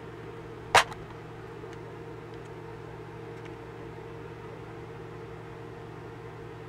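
A single sharp plastic snap just under a second in as the blue latch of a clear plastic parts-organizer box is flicked open, over a steady low hum.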